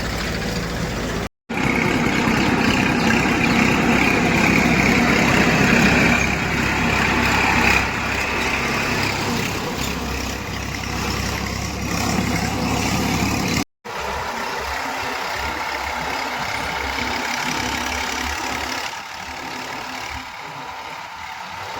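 Heavy diesel machinery engines running under work, heard in three clips joined by abrupt cuts; the middle stretch, from about 1.5 to 8 seconds in, is the loudest, with a strong high hiss over the engine.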